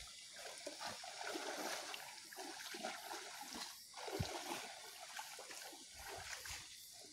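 Faint sloshing and splashing of muddy water as people wade through a shallow swamp pool.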